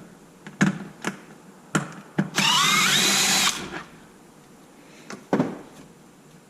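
A power driver spins for about a second, its whine rising in pitch and then holding steady as it backs out a screw from the RC truck's chassis. Sharp clicks of handling come before it and a knock follows.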